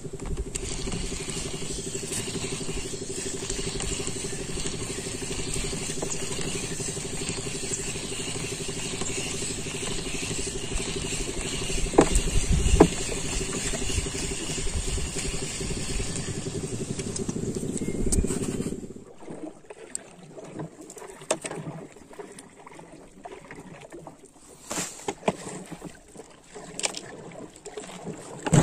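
A boat engine drones steadily, then cuts off abruptly about two-thirds of the way through. After it stops, a plastic lure box is handled with scattered light clicks and knocks.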